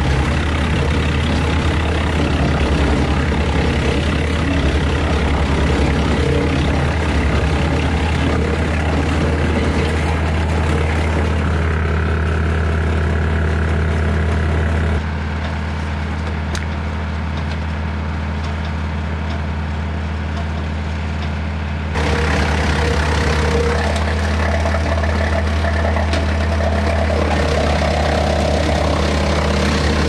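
Woodland Mills WC68 PTO wood chipper, driven by a 40 hp Kioti tractor, running steadily over the tractor's engine hum while it chews up sawmill slabs fed into it. The sound drops quieter and smoother for several seconds in the middle, then comes back at full strength.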